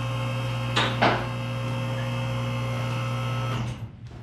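Electric hydraulic pump motor of a two-post car lift running with a steady hum. Two sharp clatters come about a second in, and the motor cuts off near the end.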